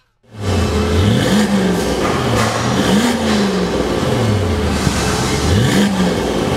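2014 Maserati Quattroporte S Q4's twin-turbo V6 idling through a Fi Exhaust valved exhaust with the valves closed, revved three times, each rev rising and then falling back to idle.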